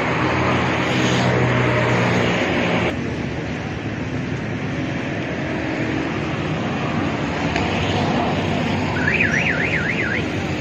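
Road traffic noise with a low engine hum, dropping abruptly about three seconds in. Near the end a vehicle's electronic warbling tone sweeps rapidly up and down, about six times in a second.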